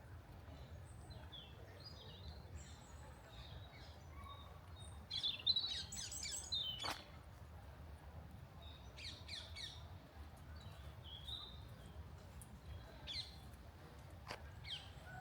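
Several small birds chirping and trilling in short calls, busiest about five to seven seconds in, over a steady low rumble, with a couple of sharp clicks.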